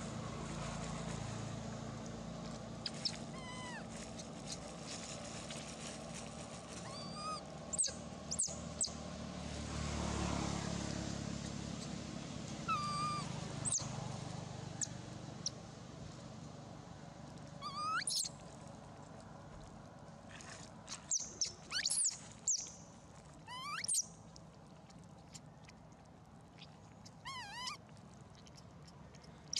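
Long-tailed macaques giving high-pitched squeaks. Each squeak is a quick downward glide, coming singly and in short clusters, thickest around twenty seconds in, with a wavering run near the end. Under them, a low rumble swells and fades about ten seconds in.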